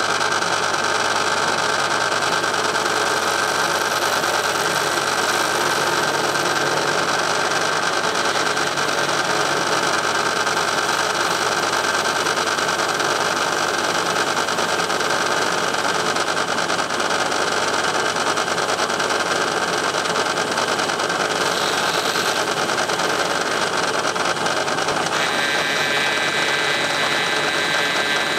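Metal lathe running steadily with its chuck spinning while an insert tool turns down a square block of aluminium. Its steady hum holds throughout, and a higher set of steady tones joins about 25 seconds in.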